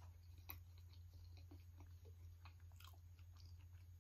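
Faint chewing and small mouth clicks of a person eating soft, ripe durian flesh, with a slightly louder click about half a second in.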